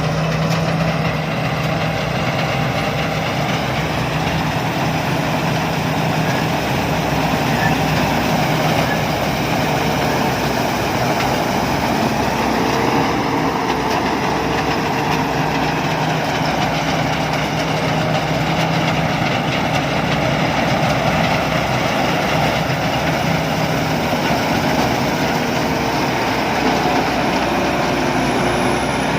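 Sakpattana KMT 240 combine harvester working steadily, its diesel engine and threshing machinery running at a constant, even level while it harvests fallen rice.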